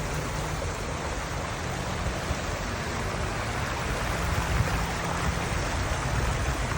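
Steady rush of water from a man-made waterfall, an even, continuous splashing hiss with a low rumble underneath.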